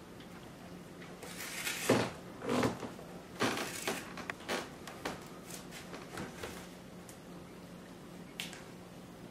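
Cardboard box being torn and crushed by a Bernese Mountain Dog shredding it: a run of irregular rips and crunches for about five seconds, then one faint scrape near the end.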